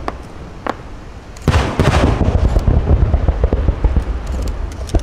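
Aerial fireworks display: a few sharp cracks, then about a second and a half in a heavy volley of shell bursts that runs on as a dense rumble of booms and crackle, with another sharp bang near the end.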